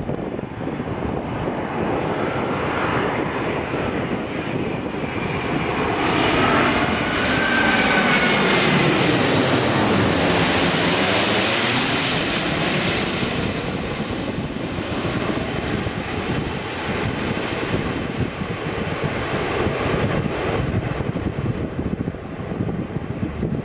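Airbus A380-800 jet airliner on landing approach, passing close overhead. Its engine noise builds to a peak about ten seconds in, a whine gliding down in pitch as it goes by, then fades away slowly.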